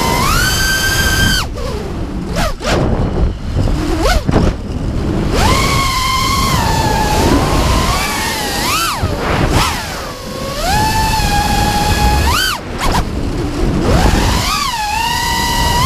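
FPV racing quadcopter's brushless motors (Lumenier 2206 2350 kV on 5-inch props) whining, the pitch rising and falling as the throttle is punched and eased. About a second and a half in, the whine drops away to a rush of air for a few seconds, then climbs back; it cuts out once more, briefly, past the twelve-second mark.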